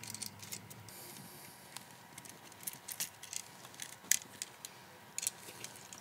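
Faint, irregular small clicks and ticks of a bare copper ground wire being bent into a loop by hand and hooked around the ground screw of a plastic USB wall receptacle; two clicks a little louder near the end.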